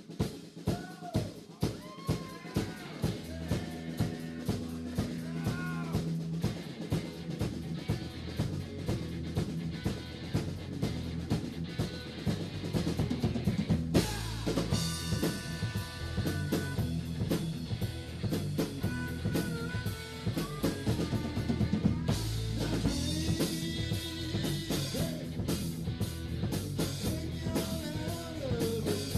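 Live rock band playing: a drum kit keeps a steady beat under bass and electric guitar, with a harmonica played over it. The band grows fuller about halfway through.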